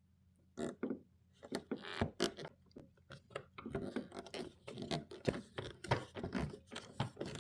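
Irregular clicks, taps and short scrapes of a hand tool working against metal and plastic: a flathead screwdriver trying to turn a stripped Torx screw.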